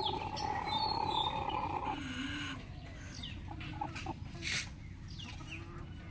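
Chickens calling: a long held crow-like note ends about two seconds in, followed by short clucks and calls.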